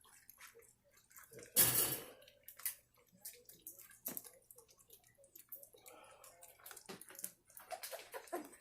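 Puppies lapping and licking at a dish of wet food: irregular wet smacking clicks, with one brief louder noise about a second and a half in.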